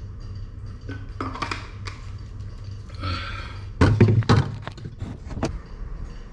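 A few dull thumps and knocks over a low steady rumble, the loudest cluster about four seconds in, with a sharp click shortly after.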